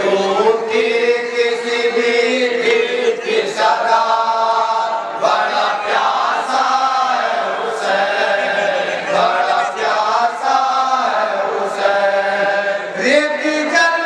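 Male voices chanting a noha, a Shia Muharram lament, unaccompanied and sung into a microphone, with long held notes that bend between pitches.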